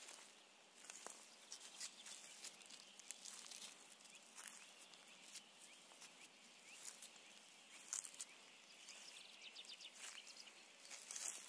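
Faint footsteps crunching on dry grass and fallen leaves: an irregular scatter of soft clicks and rustles over quiet outdoor background.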